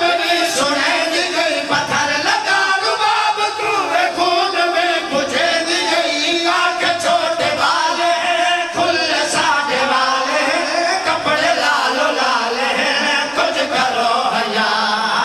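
A boy and several men singing a mourning lament together into microphones, their voices sustained and continuous.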